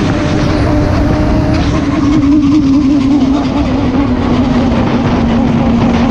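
Motorcycle engine running hard at highway speed, a steady note that drops gradually in pitch through the middle as the revs ease off, over heavy wind rush on the microphone.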